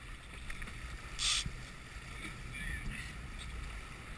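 Boat under way at sea: a steady low rumble of engine and wake water, with a short hiss about a second in.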